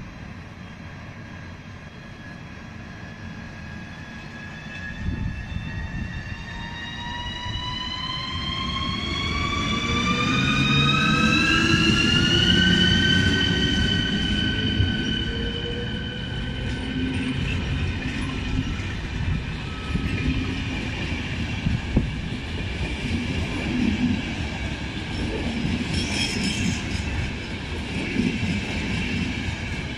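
Škoda 109E1 (ČD class 380) electric locomotive pulling away with a passenger train: its traction drive whines in several tones that rise in pitch as it accelerates and level off about halfway through. Then the coaches roll past with a steady wheel-on-rail rumble and clatter.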